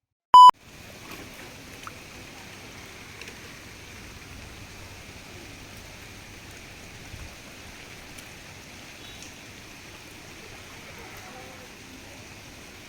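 A short, loud electronic beep right at the start, then the steady hiss of rushing water.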